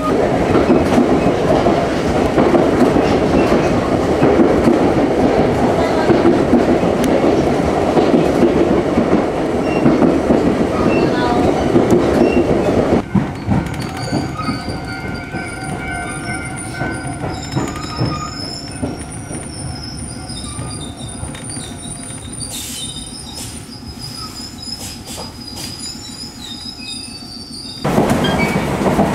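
Electric commuter train heard from inside the passenger car, running with a loud rumble and clatter. About halfway the noise drops sharply and high, wavering squeals of steel wheels ride over quieter running, and near the end the loud running noise comes back abruptly.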